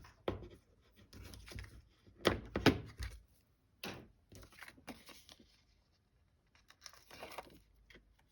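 Paper and card being handled on a tabletop: several sharp taps and knocks, the loudest about two and a half seconds in, with short rustles of paper and tape in between.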